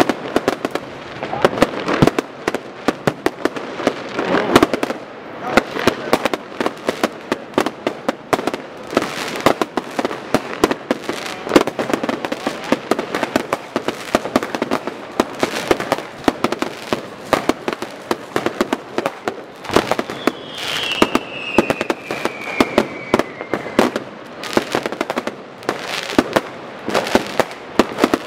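Fireworks and firecrackers going off in a dense, unbroken run of bangs and crackles. About twenty seconds in, a whistle falls in pitch for roughly three seconds over the bangs.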